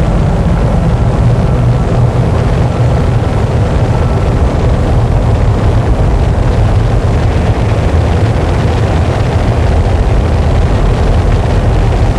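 Noise music: a loud, unchanging wall of distorted static, heaviest in the low end, with no rhythm or breaks.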